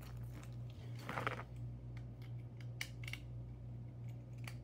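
Scattered light clicks and a brief rustle about a second in, over a steady low hum.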